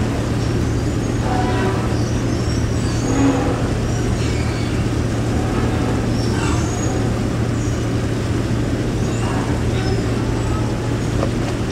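Moored passenger fast ferry's diesel engines idling, a steady low drone.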